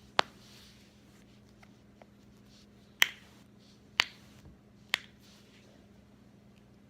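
Joints cracking: one sharp pop near the start, then three more about a second apart a few seconds later.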